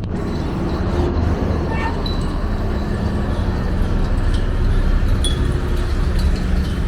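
Steady low rumble of heavy vehicles and machinery, with scattered metallic clinks and knocks over it.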